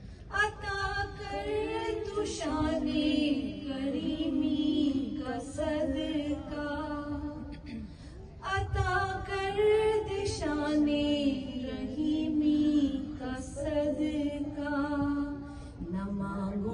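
A woman's voice singing a naat unaccompanied through a microphone, in long held notes that waver in pitch, phrase after phrase, with a short breath pause about eight seconds in.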